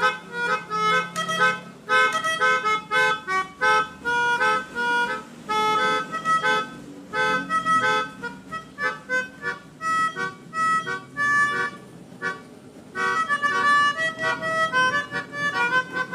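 Pianika (melodica) playing a basuri 'telolet' bus-horn style tune: short, detached notes and chords in a quick bouncing rhythm, with a brief lull about three quarters of the way through.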